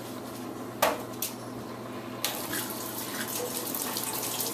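Water tap turned on a little past halfway through, then water running steadily into the sink or tub where a puppy is being bathed. Two short knocks come before it.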